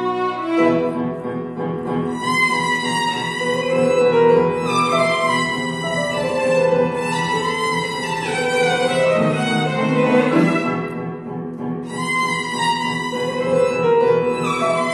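Violin bowed in a melody of held notes with vibrato, accompanied by piano.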